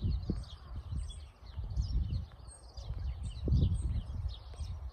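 Small birds chirping and singing over an uneven low rumble on the microphone.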